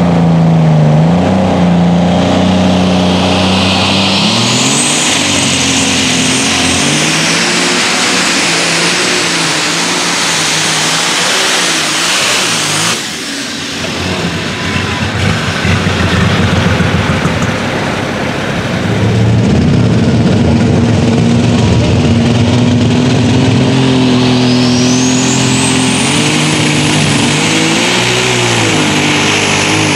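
Turbocharged diesel engines of light super stock pulling tractors running at full power under load, with the turbo whine rising steeply to a high whistle a few seconds in. About halfway through the sound dips and changes, and a second tractor's engine takes over, its turbo whine rising steeply again near the end.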